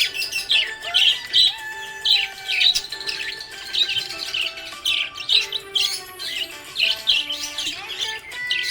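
Budgerigars chirping and chattering in quick, repeated short calls, over background music with held notes.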